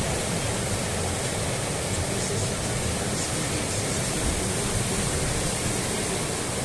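Ocean surf breaking on a sandy beach: a steady rushing noise with no breaks, mixed with wind buffeting the microphone.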